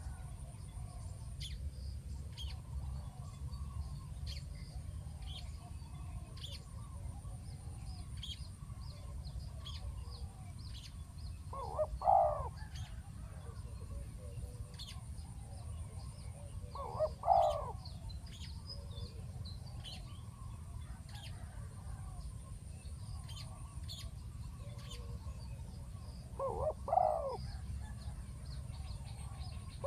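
Spotted dove cooing: three loud short coo phrases, about 12, 17 and 27 seconds in. Other small birds chirp faintly throughout, over a steady high whine and a low rumble.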